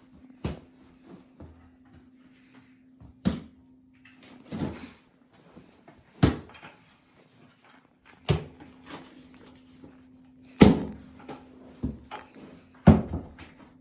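Tile-setting work: irregular hard knocks and clunks, about seven loud ones a second or two apart with smaller taps between, as tiles and tools are set down and worked into thin-set cement. A faint steady hum runs underneath.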